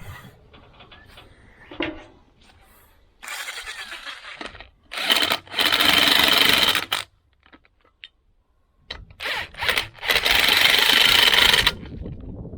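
Power tool run in bursts while bolts are started to draw the halves of a split forklift-tire rim together. There are two loud runs of about two seconds each, with a steady high whine, and short blips of the trigger before each.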